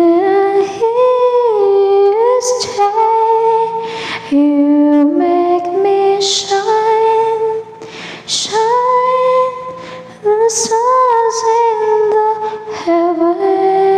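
A woman singing a slow song unaccompanied, close to the microphone, holding long notes that slide smoothly from one pitch to the next, with short breaks and a few hissed consonants between phrases.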